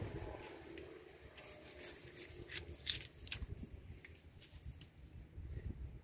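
A knife cutting a tuna, with scattered faint clicks and scrapes of the blade and the wet fish being handled on the table, over a low background rumble.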